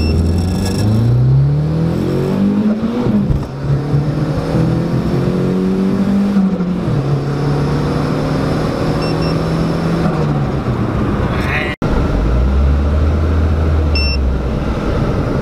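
Turbocharged 1.8-litre 20-valve four-cylinder in a VW Lupo accelerating hard from a standstill, heard from inside the cabin. The engine note climbs and drops back at gear changes about three and seven seconds in, then holds and falls away after about ten seconds. After a sudden break near the end, a steady lower engine drone.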